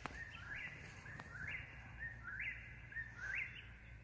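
A whip-poor-will singing its three-note 'whip-poor-will' phrase over and over, about once a second, each phrase ending in a rising note.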